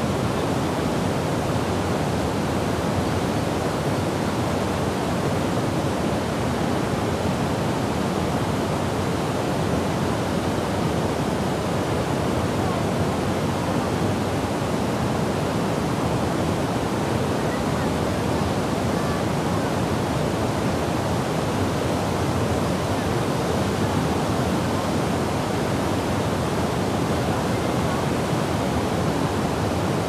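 Low waterfall pouring over a bedrock step into a pool: a steady, even rush of falling water, fullest in the low and middle range, with no breaks or changes.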